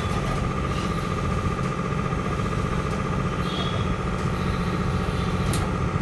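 Steady low machine hum with a constant high whine over it, and a few faint clicks.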